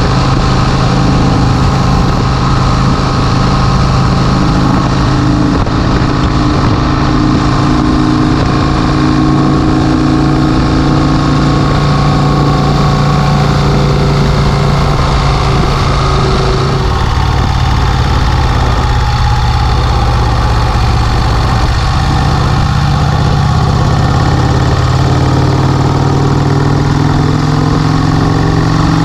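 1951 Vincent Rapide's 998 cc V-twin engine running loud and steady as the motorcycle is ridden. The engine note eases off about two-thirds of the way through, then climbs again near the end.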